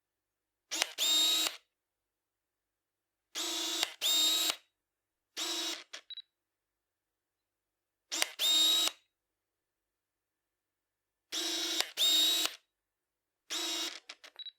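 Old camera lens autofocus driven by a screw-drive focus motor: short whirring runs of the motor, mostly in close pairs, about six times with silence between, and a few small clicks near the end.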